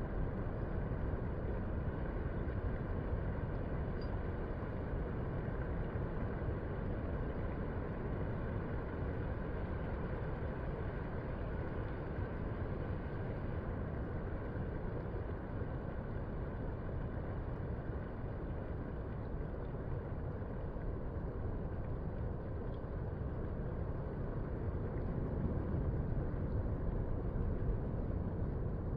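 Distant ocean surf: a steady low rumble of waves breaking along the shore, growing a little louder near the end.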